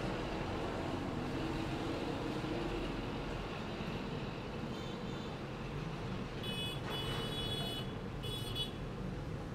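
Steady background noise, with faint high-pitched tones about five seconds in and two stronger ones near the end.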